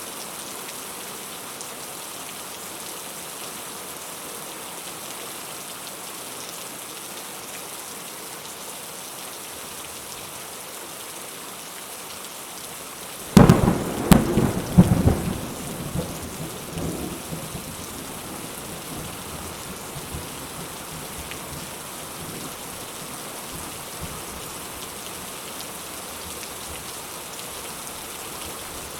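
Steady rain hiss, with a sudden close thunderclap about halfway through that cracks loudly, rumbles in several peaks and fades away over a few seconds.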